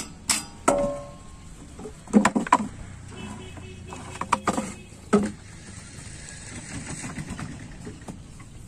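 Wooden planks and metal parts being handled under a boat hull: a handful of knocks and clatters, one metal clank about a second in that rings briefly, and more knocks in two clusters around the middle.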